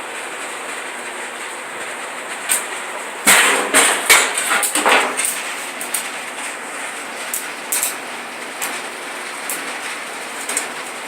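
Stick (arc) welder's electrode being struck against steel: a loud burst of crackling and sputtering about three to five seconds in, then short scattered crackles over a steady hiss. The arc catches only briefly and does not hold, typical of a beginner learning to strike and keep the arc going.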